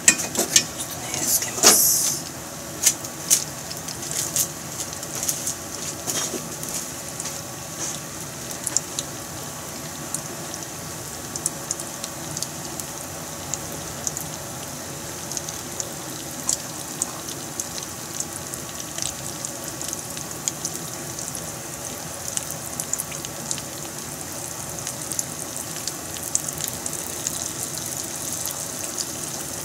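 Chicken pieces frying in hot oil in a frying pan: a steady sizzle with frequent sharp crackles and pops, the loudest pops in the first two seconds.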